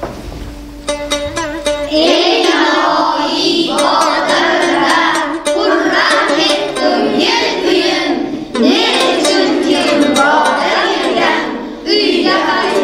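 Group singing over plucked-string music accompaniment; after a short instrumental phrase, the voices come in about two seconds in and carry on to the end.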